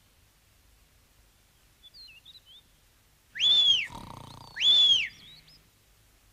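Two loud whistles about a second apart, each a single tone that rises and then falls, blown to wake a sleeper. Between and just after them comes a low snore. Faint bird chirps sound about two seconds in.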